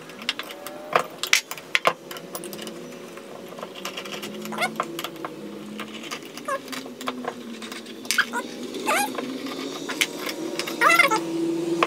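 Metal clicks and clinks as a stainless butterfly valve and its handle are worked and taken apart by hand, sharpest in the first two seconds. Several short animal calls come through, rising in pitch, the loudest near the end.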